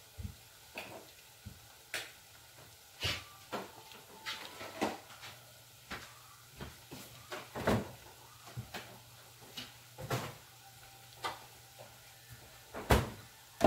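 Eggplant balls frying in a saucepan of hot oil, popping and crackling irregularly, a sharp pop every second or so, over a faint low steady hum.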